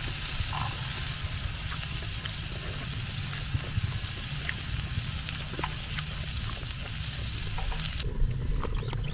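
Beef sizzling on a hot round grill pan, with a few light clicks of chopsticks against the pan. The sizzle drops away suddenly near the end.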